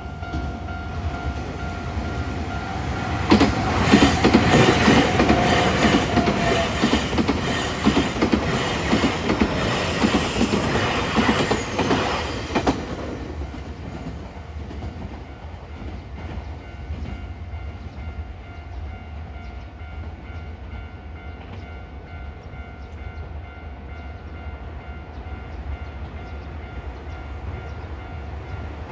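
A Nankai Koya Line electric train passes over a level crossing, its wheels clattering over the rail joints, loudest from about 3 to 13 seconds in, then fading to a low rumble. A crossing warning bell rings throughout as a steady tone, clearest at the start.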